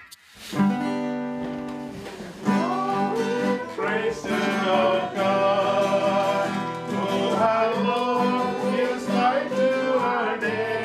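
Acoustic guitar strumming, with a voice singing over it from about two and a half seconds in: a song in a country style.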